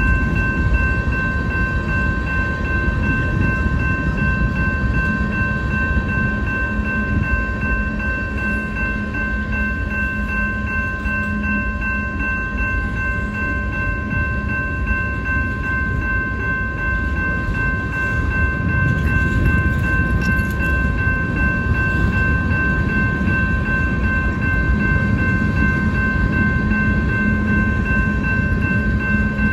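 Freight cars of a mixed train rolling past over a grade crossing: a steady rumble and rattle of wheels on the rails. Above it sounds a steady ringing from the crossing signal's bell.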